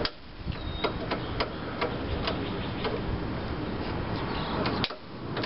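Sharp, irregular clicks, roughly two a second, as a nut driver turns the nut holding the starter-rope guide onto a push mower's handle, over a steady background hiss.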